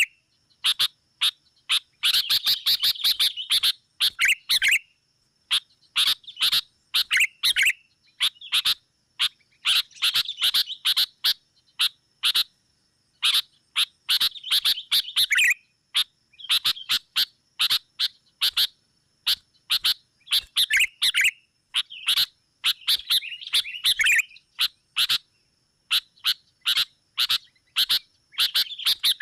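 Sooty-headed bulbuls (kutilang) chattering in rapid runs of short, harsh notes, burst after burst with brief silences between. These are the agitated, quarrelsome calls used as a lure (pikat) to draw in rival bulbuls. A faint steady high tone runs underneath.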